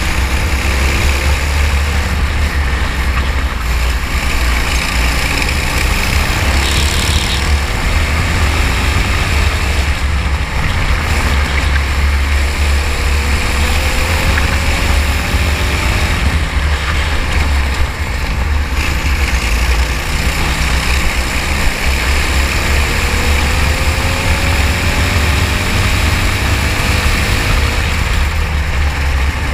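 Racing kart engine running at speed under a heavy, steady low rumble, its note rising several times as the kart accelerates.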